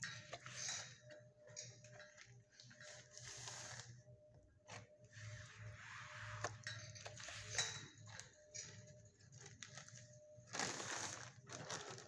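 Dog sniffing and snuffling at close range with his nose against a chain-link kennel fence, in repeated hazy puffs of breath while searching for snacks. There are a few sharp clicks, and a steady low hum runs underneath.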